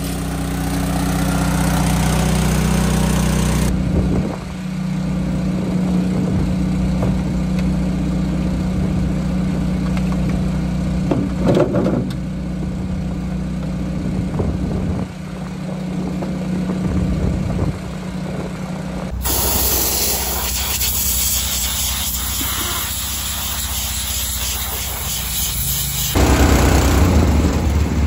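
Honda GX small gas engine on a fuel trailer running steadily, driving the transfer pumps that move diesel and DEF into the combine. It gets louder near the end, heard up close.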